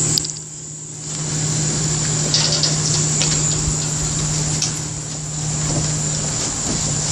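An engine running at a steady speed, its level dipping briefly just after the start.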